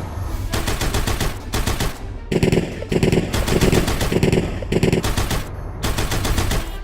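Rapid rattling in several bursts, each a fast run of sharp clicks. In the longest burst a low pulse repeats about three times a second.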